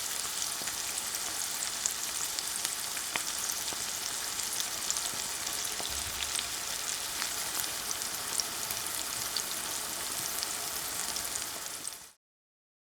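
Food frying in a hot pan: steady sizzling with scattered small crackles and pops, cutting off shortly before the end.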